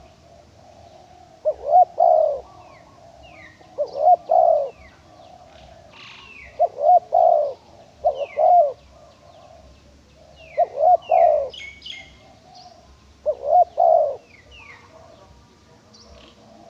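Spotted dove, a female, cooing: six short low coo phrases a few seconds apart. Small birds chirp faintly in the background.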